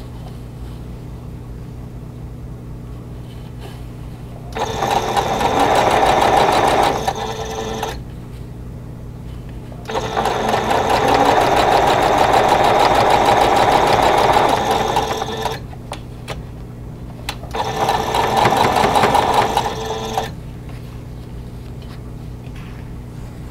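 Singer electric sewing machine stitching in three runs of rapid needle strokes, about three, five and three seconds long, with short pauses between them as seams are sewn through quilt patches.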